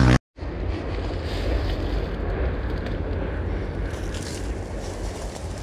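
Wind buffeting the microphone, a steady low rumble and hiss, after a brief dropout just after the start.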